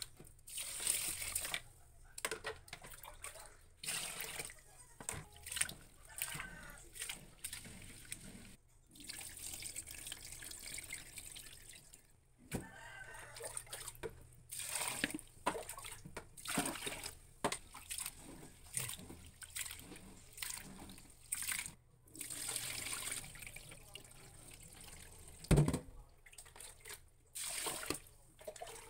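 Tap water running on and off into an aluminium pot of glutinous rice in a sink, filling it to wash the rice, with one dull thump near the end.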